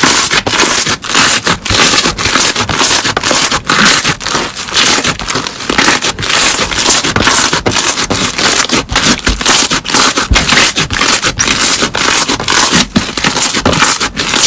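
Slime being squeezed and pressed by hand, making a dense, loud run of crackling and crunching with many brief breaks.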